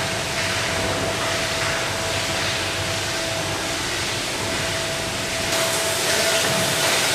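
Steady machinery noise of a poultry evisceration line: a continuous hiss and rumble with a steady hum. The sound shifts about five and a half seconds in, losing some of its low rumble and turning brighter.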